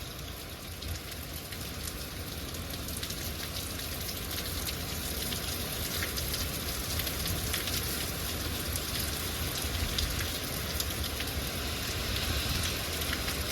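Heavy thunderstorm rain pouring down, a steady hiss dense with the patter of drops, growing a little louder over the first few seconds.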